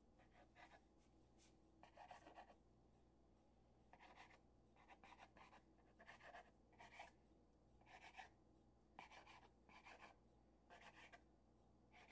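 Faint, irregular strokes of a kitchen knife drawn through soft rolled dough and scraping the floured work surface beneath it, about one or two a second, as the dough is cut into dumpling pieces.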